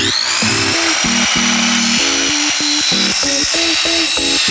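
Ryobi sliding miter saw starting with a rising whine right at the start, then running at full speed as the blade is brought down through an aluminum T-slot extrusion. Background music with a stepping melody plays underneath.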